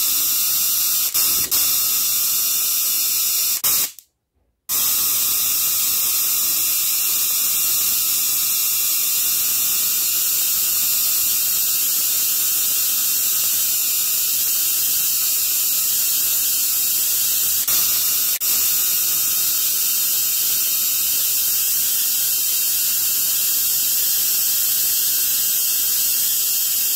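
Spark-gap Tesla coil running: a steady high hiss of electrical discharge, with purple corona glowing at a wire tip. The sound cuts out for about half a second around four seconds in, then goes on unchanged.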